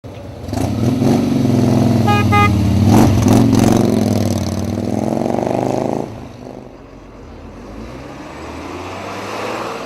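Busy city-avenue traffic: a vehicle engine passing close and loud, its pitch sliding, with two short horn toots about two seconds in. About six seconds in it drops suddenly to a quieter, steady traffic rumble.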